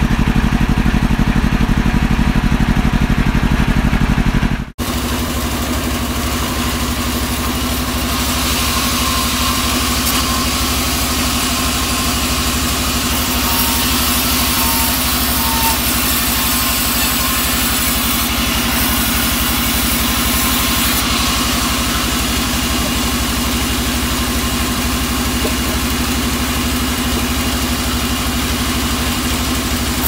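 Band sawmill running steadily with its blade spinning free while the log is lined up, not yet cutting; the sound breaks off briefly about five seconds in and resumes as a fuller, steady mechanical noise.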